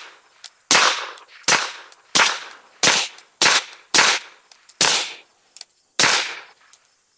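Nine shots from a suppressed 9mm Beretta APX A1 Tactical pistol with a Rugged Obsidian 45 suppressor, fired in a steady string about one and a half a second apart, each a sharp report with a short tail. The pistol cycles every round on 115-grain range ammunition, with faint clicks between the shots.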